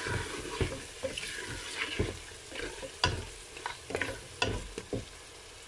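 A spatula stirring and scraping around a pressure cooker pot, with irregular knocks against its side, while lamb pieces and ground spices sizzle in hot oil. The stirring stops about five seconds in, leaving a faint sizzle.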